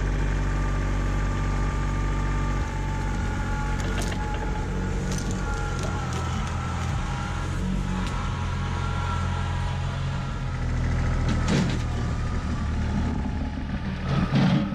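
Kubota B2601 compact tractor's three-cylinder diesel engine running under load, its note shifting a couple of times. Several knocks come near the end.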